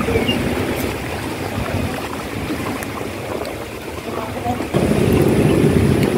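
Wind buffeting the microphone: a steady low rumbling noise that suddenly gets louder about three-quarters of the way through.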